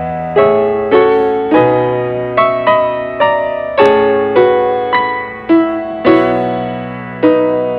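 Background music: piano playing a melody of single struck notes, about two a second, each ringing and fading.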